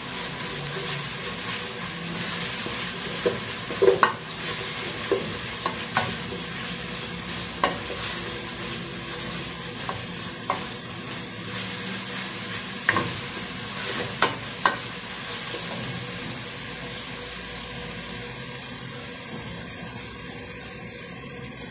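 Chopped onion and garlic sizzling in hot oil in a stainless steel pot while a wooden spoon stirs them, a steady frying hiss. The spoon knocks sharply against the pot about ten times, mostly in the first fifteen seconds.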